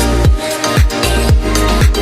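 Electronic dance-style background music with a steady kick-drum beat, roughly two beats a second, over sustained bass and chords.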